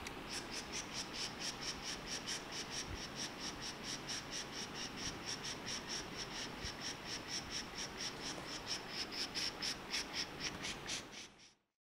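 Crickets chirping steadily, about four chirps a second, over a faint hiss; the sound fades out near the end.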